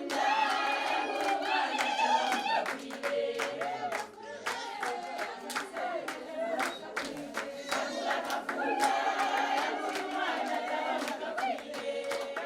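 A group of voices singing together, accompanied throughout by hand-clapping.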